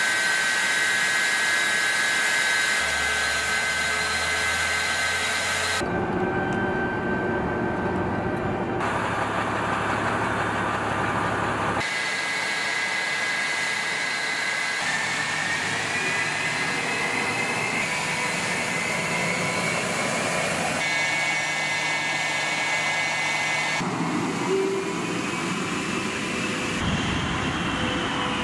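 Fighter jet engines running on the ground: a steady high whine over a broad rushing noise that changes abruptly every few seconds as one clip cuts to the next. About halfway through, the whine rises in pitch as an engine spools up.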